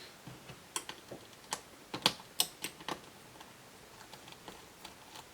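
A quick, irregular run of small sharp clicks and taps as a screwdriver works two small screws out of a laptop, dying away about three seconds in.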